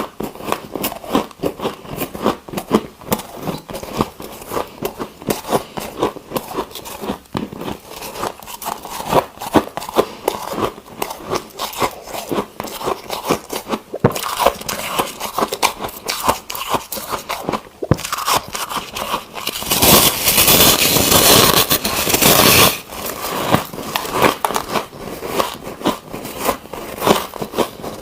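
Ice being bitten and chewed: a steady run of sharp crunches and crackles, with a louder, continuous rush of crunching lasting about three seconds a little past the middle.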